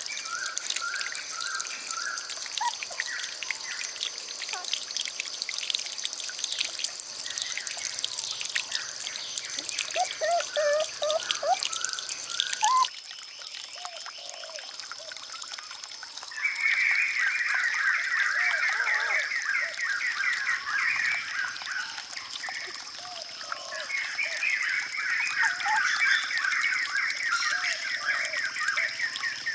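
Water trickling and dripping, with bird chirps and a steady high-pitched drone behind. About 13 seconds in the sound changes abruptly, and two long stretches of rapid chirping trills follow, each several seconds long.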